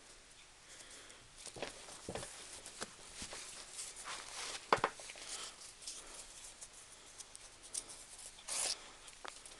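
Leather boat shoes scuffing and rubbing, with scattered short clicks and brief scrapes, the sharpest about five seconds in and a longer scrape near the end.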